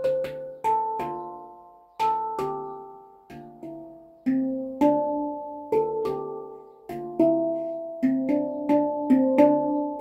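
Handpan (hang drum) in D minor played with the fingers: single struck notes ringing out and overlapping in a slow melody, now and then two notes in quick succession.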